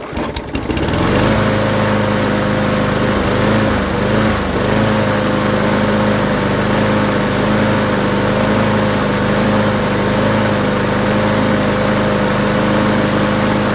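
Briggs & Stratton push-mower engine pull-started, catching at once and rising to a steady running speed, wavering briefly a few seconds in before settling into an even run. Water the owner believes got into the muffler during washing may cause the wavering.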